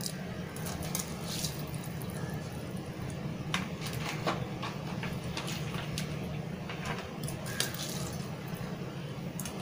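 Spiced water boiling hard in an aluminium pressure cooker on a gas stove, bubbling steadily with scattered small pops and splashes as soaked basmati rice and its soaking water are poured in.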